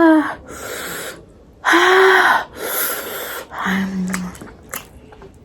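A person gasping and panting from chili heat after biting a hot dalle chili: breathy gasps, a voiced 'haa' about two seconds in, a sharp hissing intake of air, then a short hum, growing quieter toward the end.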